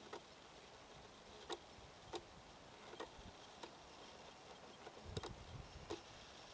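Near silence: a faint hiss with scattered soft clicks, roughly one a second, and a slight low rumble near the end.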